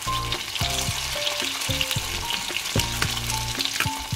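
Chicken liver kababs sizzling in hot oil in a cast-iron pan, with a steady run of sharp crackles and pops: liver makes the oil spatter. A metal slotted spoon works among them as they are turned. Background music plays underneath.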